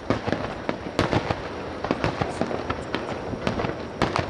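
Fireworks display: shells bursting in quick, irregular succession, many sharp bangs mixed with crackling, the loudest about a second in and again near the end.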